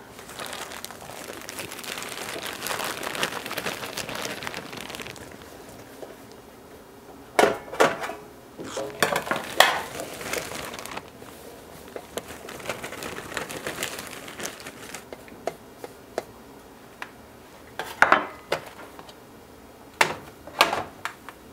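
Plastic candy bag crinkling for the first few seconds, then sharp clatters and knocks of metal trays being handled, with scattered clicks.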